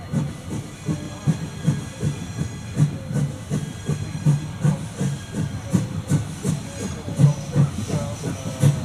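Steam locomotive working a train, its exhaust chuffing in an even rhythm of about three beats a second over a steady hiss of steam.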